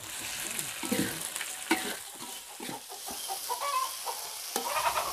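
Boiled cassava leaves stir-frying in hot oil in a pan: a steady sizzling hiss, with the utensil scraping and knocking against the pan as the leaves are stirred.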